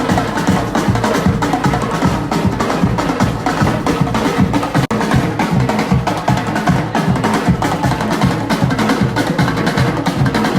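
Music with fast, busy drumming and percussion, briefly cutting out for an instant about halfway through.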